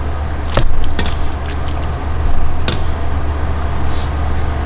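Bowls and utensils clinking a few times over a steady low hum.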